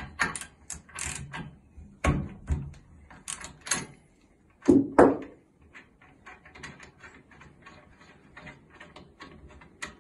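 Ratchet wrench with a spark plug socket loosening the spark plug on a Tillotson TPP-225RS four-stroke engine. It makes a string of ratchet clicks and metal clunks, with two louder knocks about five seconds in, then a run of faint quick ticks.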